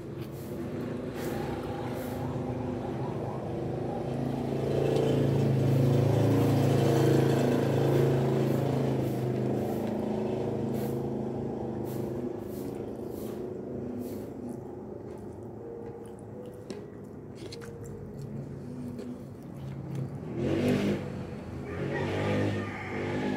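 A motor vehicle engine running with a steady low hum, swelling to its loudest a few seconds in and slowly fading, over close-up chewing and lip smacks.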